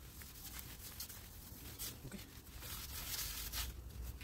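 A cloth rubbing around the inside of a new brake drum in short wiping strokes, cleaning the factory oil coating off the drum before it is fitted. The strokes come faint and scattered, then quicker and louder in the last second.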